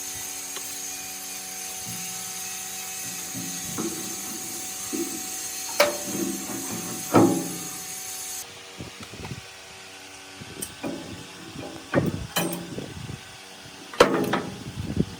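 Workshop tool noise: scattered knocks and taps of hand tools over a steady hum, with a high whine that stops about halfway through.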